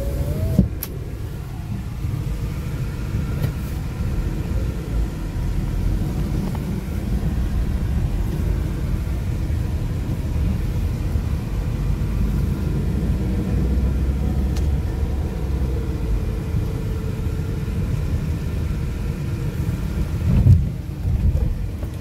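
Steady low rumble of a car's engine and tyres, heard from inside the cabin while it drives slowly. A single thump comes near the end.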